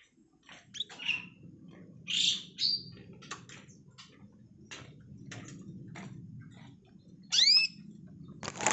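Male canary in breeding condition calling for a female: scattered short chirps and calls, with louder calls about two seconds in and a loud arched whistled call near the end. A sharp click comes just before the end, over a low steady background hum.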